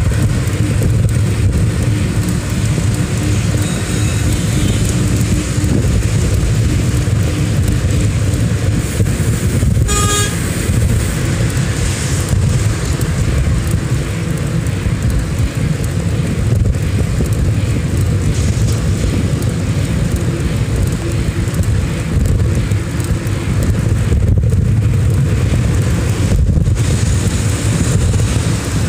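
Steady low rumble of road traffic and wind on a camera riding through city traffic, with one short car-horn toot about ten seconds in.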